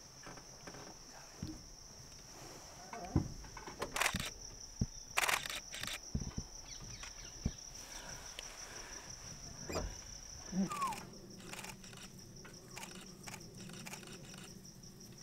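Steady high-pitched insect chirring, with a few sharp clicks and knocks in the first half. From about ten seconds in, a low steady hum joins.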